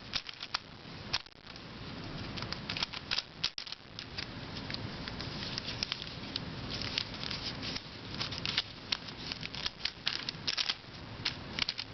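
A gear Pyraminx twisty puzzle being handled and turned by hand: irregular plastic clicks, taps and rattles.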